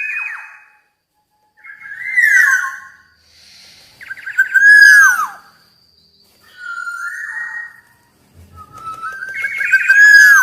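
Black-naped oriole singing: loud, fluting whistled phrases, many ending in a downward-sliding note, repeated about every two to three seconds.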